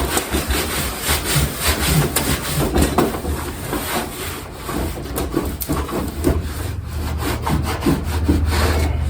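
A towel wiping and rubbing over the grimy metal body of a kerosene heater: continuous scrubbing with many irregular back-and-forth strokes.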